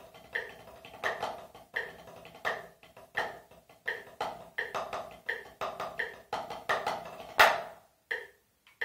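Wooden drumsticks playing a rudimental snare-drum solo on a rubber practice pad: quick clusters of strokes with regular accents. The loudest accent comes about seven and a half seconds in, then a few spaced final strokes close the solo.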